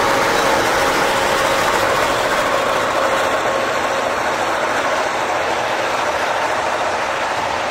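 Grain hopper wagons rolling steadily past on the rails, with the diesel engines of two S-class locomotives running under load and slowly fading as they move away.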